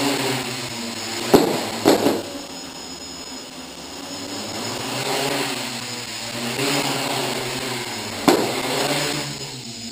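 DJI F450 quadcopter's four electric motors and propellers buzzing as it hovers low, the pitch rising and falling as it bobs up and down, the vertical oscillation that still has to be corrected. Sharp knocks about a second and a half in, at two seconds and near the end, as the frame touches the wooden floor.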